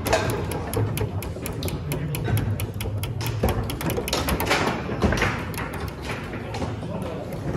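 Table football in play: the ball struck by the plastic figures and the rods knocking, a rapid, irregular run of sharp clicks and knocks, with a few harder hits near the middle.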